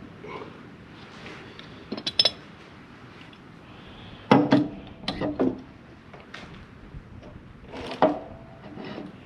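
Metal tools clanking and clinking in short, irregular strikes while a heavy cable lug is being crimped. The loudest cluster comes a little over four seconds in, and some strikes ring briefly.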